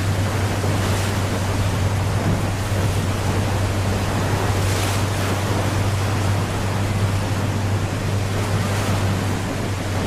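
Steady rushing of white water pouring over the Rhine Falls, with a steady low hum underneath.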